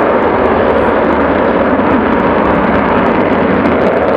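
Avro Vulcan XH558's four Rolls-Royce Olympus turbojet engines flying past, a loud, steady jet noise.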